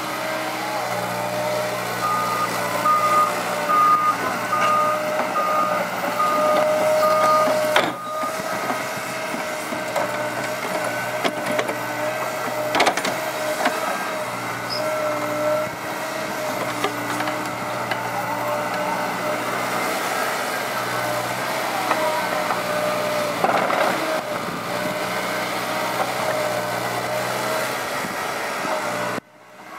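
Liebherr 906 crawler excavator's diesel engine running steadily under digging work, with a steady whine over it. For several seconds near the start an alarm beeps evenly, about one and a half times a second.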